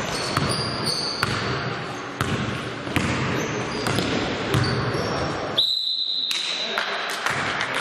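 Basketball game sounds on an indoor court: the ball bouncing repeatedly, sneakers squeaking on the floor, and players' voices. About two-thirds through comes a longer high squeal lasting over a second.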